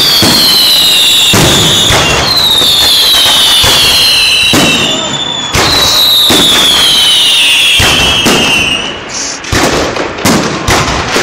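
Fireworks display: a dense run of bangs and crackle from shells bursting overhead, with three long high whistles that each slide down in pitch. From about nine seconds in, the barrage thins into separate sharp bangs.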